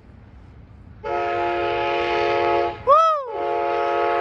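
Passenger train's multi-chime air horn, sounded from the leading cab car as a horn show: a loud steady chord starts about a second in, breaks briefly near three seconds for a short note that slides up and then down in pitch, and then sounds again.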